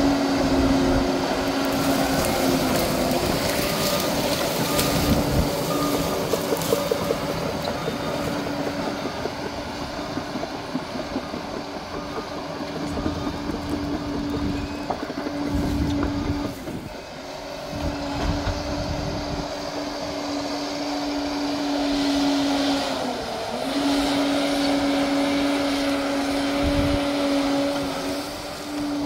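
Liebherr 746 crawler bulldozer at work: its engine running steadily with a constant whine, with irregular clatter in the first several seconds. The whine drops out briefly about two thirds of the way through, and again some seconds later.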